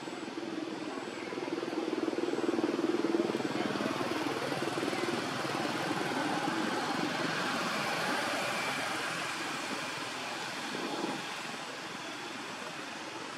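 Engine noise of a passing motor vehicle, swelling over the first few seconds, holding, then fading away and dropping off near the end.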